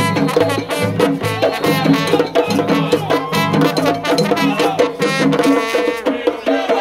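Live street band music: a trombone playing over pounding panderos (Puerto Rican hand frame drums) in a steady Latin beat, with people singing along. The low drum pattern drops out near the end.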